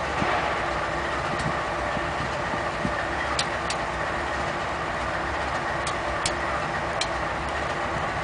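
GE Dash 9-40CW diesel locomotives running steadily with a low rumbling drone. A few short sharp clicks sound now and then, clustered around the middle and later part.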